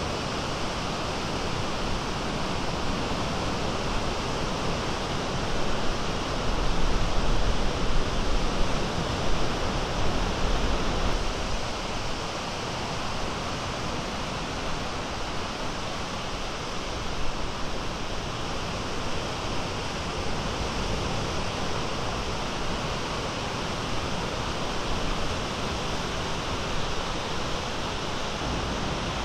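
Small Great Lakes waves breaking and washing in, a steady hiss of surf, with a stretch of louder low rumbling about six to eleven seconds in.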